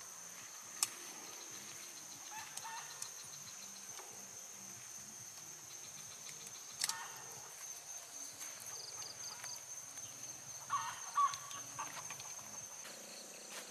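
Steady high-pitched chirring of insects, with scattered sharp clicks and rustles from a tent's poles and fabric being handled as it is pitched; the sharpest clicks come about a second in and near seven seconds, with a busier clatter around eleven seconds.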